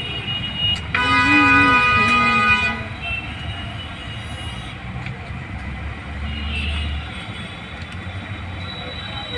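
A vehicle horn sounds for about a second and a half over a steady low rumble of passing traffic.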